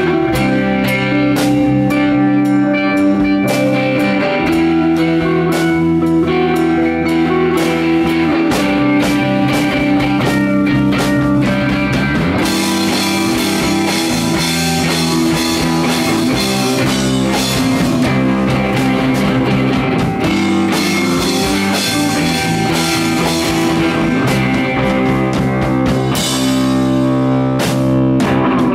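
A rock band playing live: electric guitar, electric bass and drum kit, with no singing. The playing grows brighter and busier about halfway through.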